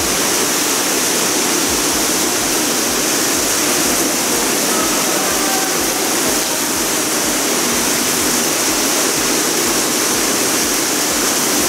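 Spring water flowing through a rock tunnel, a steady, unbroken rushing noise.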